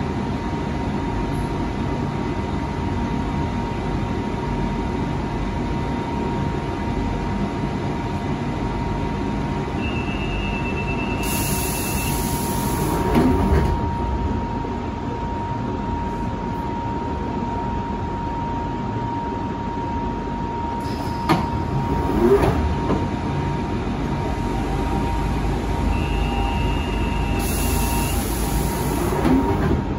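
London Underground Central line train standing with a steady rumble and hum. Twice, a door warning tone sounds for about two seconds and is followed by the hiss and movement of the sliding doors.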